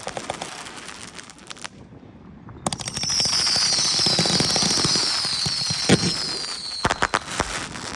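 Consumer firework cake firing: a quick run of crackling shots, then a loud hissing whistle with sharp bangs, one about six seconds in and a cluster near the end.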